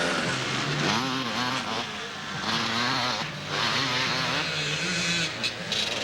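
Off-road motorcycle engines revving, the pitch rising and falling repeatedly as the throttle is worked.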